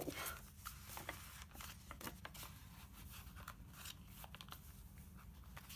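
Faint rustling and scattered light taps of paper pages being turned and handled in a handmade junk journal.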